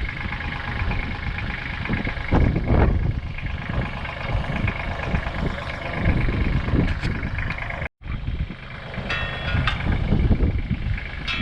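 Small excavator's engine running with a steady whine. The sound drops out for an instant about eight seconds in, then short metallic squeals and clanks come through over the engine.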